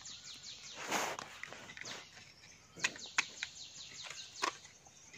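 A small hand digging tool scraping and knocking into hard, dry soil and crunching leaf litter: a gritty scrape about a second in, then a few sharp clicks. Faint bird chirping carries on behind.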